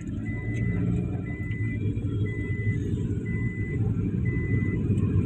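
Steady low rumble of a car on the road at night. A short, high electronic beep repeats about once a second, five times.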